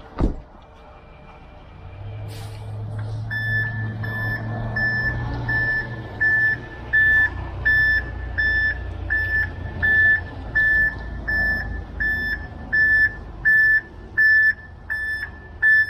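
Ready-mix concrete mixer truck backing up: its reversing alarm beeps evenly, about three beeps every two seconds, over the diesel engine running and growing louder as it nears. A single sharp thump right at the start, a vehicle door being shut.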